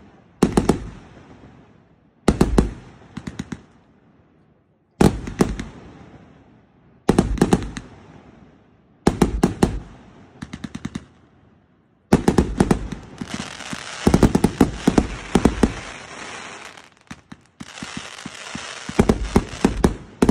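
A 1.2-inch, 168-shot fireworks cake firing: volleys of several sharp bangs about every two seconds. From about twelve seconds in, the shots come thick and fast as a dense run of cracks over a steady hiss, with a short break just before the last stretch.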